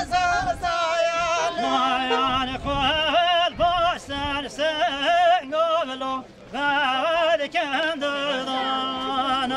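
Live dance music for a line dance: a high, wavering melody full of quick turns over a low note held in repeated pulses.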